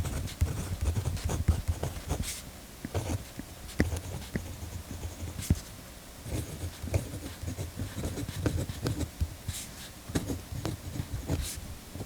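Pentel GraphGear 1000 mechanical pencil with 0.3 mm lead writing on paper: irregular short scratching strokes mixed with soft low thuds, stopping and starting as the words are formed.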